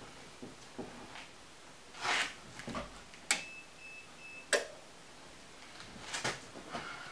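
Faint clicks and small handling noises, with a sharp click about three seconds in, a broken high beep lasting about a second, then another sharp click. No engine cranking or running is heard.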